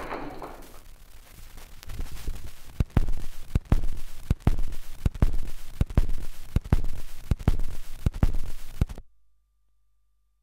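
Playback of an old lacquer disc: after the recording fades out, the stylus rides the run-out groove, giving a steady run of thumps and clicks about once per turn over surface hiss. The sound then cuts off suddenly near the end.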